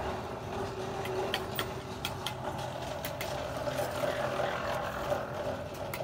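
An engine running steadily at a low idle-like hum, with a few light clicks and taps over it.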